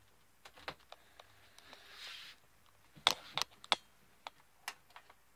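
Scattered sharp clicks and light knocks, the loudest cluster about three seconds in, with a short soft hiss about two seconds in.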